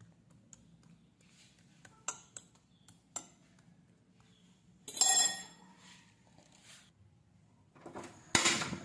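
Metal fork tapping, clinking and scraping against a glass baking dish as it presses boiled eggplants flat in beaten egg: a few light taps, then a louder half-second clatter about five seconds in. A louder clatter comes near the end.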